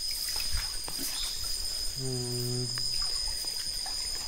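Night insects, crickets, chirring steadily in two high, continuous tones. About two seconds in comes a brief low hum at one steady pitch, lasting under a second.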